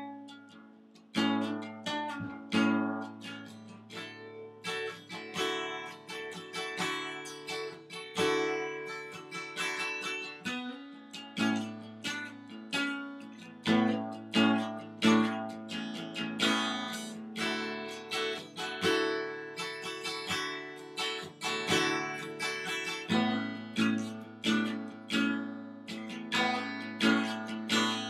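Acoustic guitar strummed in a steady rhythm of chords, with a brief pause about a second in.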